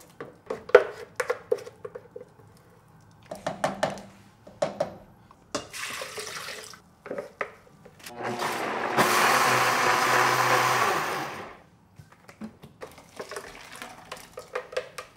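Spatula scraping and knocking thick red bean purée out of a plastic blender jar into a pot, in scattered scrapes and taps. About eight seconds in, an electric blender runs steadily for about three seconds and then stops; this is the loudest sound.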